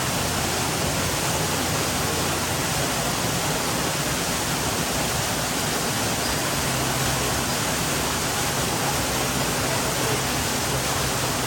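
Steady, unbroken rush of falling water from a waterfall, even and loud with no splashes or other events standing out.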